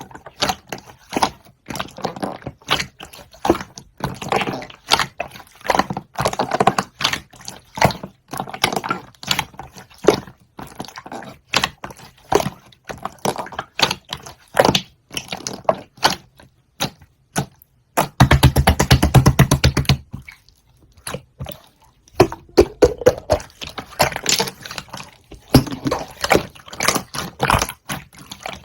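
Close-miked eating of grape konjac jelly: wet squishing, smacking and chewing sounds. About eighteen seconds in there is a dense, fast run of wet sounds lasting around two seconds.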